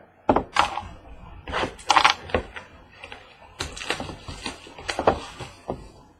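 Cardboard trading-card boxes and their wrapping being handled: an uneven run of sharp clicks, taps and crinkly rustles.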